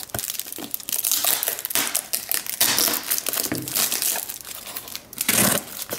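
Clear plastic wrap and brown packing tape on a parcel crinkling and tearing as it is pulled open by hand, in irregular rustling bursts.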